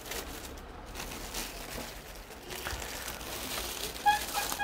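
Faint rustling and crinkling handling noise from a stone-studded bridal purse as it is held up and turned. About four seconds in, a few steady, high-pitched held notes begin.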